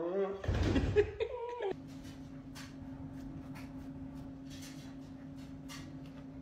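A husky's howl tails off, followed by a short noisy huff and a brief whine. The sound then drops abruptly to a quiet, steady low hum with faint soft ticks.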